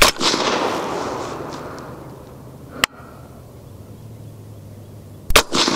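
Suppressed 6.5 Grendel AR-15 fired twice, about five seconds apart: each shot is a sharp crack followed by a rumble that fades over a couple of seconds. A single short, sharp click falls between the shots.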